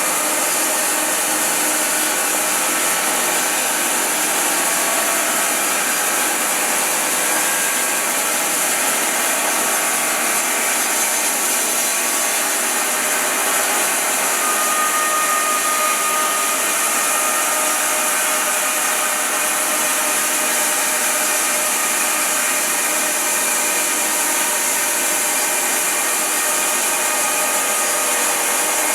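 Wide-cut bandsaw mill sawing through a large silver maple round: a steady, unbroken whir of the running blade and saw motor with a bright hiss, without a break.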